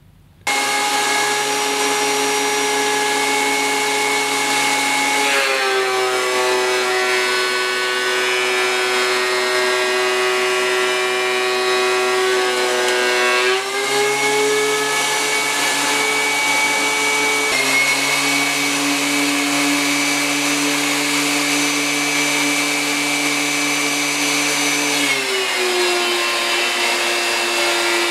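DeWalt DW735 thickness planer with a spiral cutterhead running with a loud, steady motor whine. Its pitch drops as a board feeds through under load, about five seconds in, and rises again when the board clears, around fourteen seconds. It drops again near the end as another board goes in.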